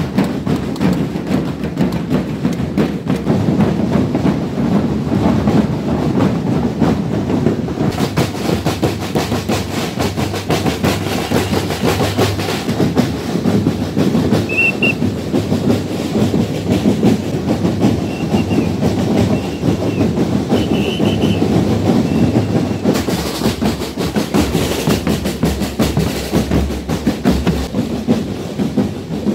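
Parade drum band of snare and bass drums beating a fast, dense, unbroken street rhythm.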